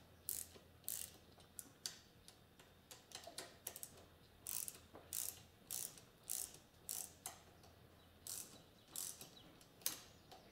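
Hand socket ratchet clicking in short back-and-forth strokes, a cluster of clicks about every half second to a second, as it snugs down the cam journal cap bolts on a Kawasaki KZ650 engine.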